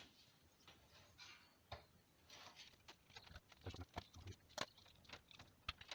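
Faint metal clicks and short scrapes as a circlip is gently prised off the sprocket-end shaft of a Toyota 1KZ-TE power steering pump, the clicks coming more often in the second half.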